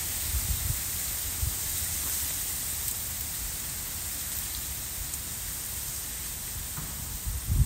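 Steady outdoor hiss with low wind bumps on the microphone now and then.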